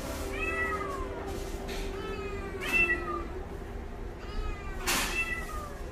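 Kitten meowing three times, each call rising then falling in pitch.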